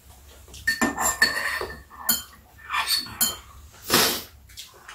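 Metal spoons clinking and scraping against ceramic bowls and a plastic food container at a meal table: a run of clinks, the first ringing on for about a second.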